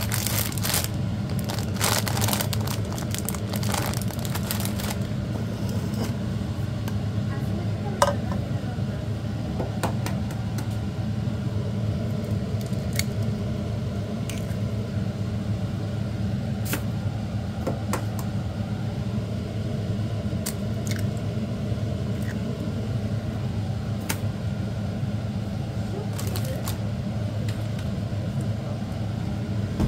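Raw eggs being cracked into a ceramic bowl: sharp clicks and knocks of shell on the bowl rim and handling of the bowl, the sharpest about 8 seconds in. A steady low hum runs underneath.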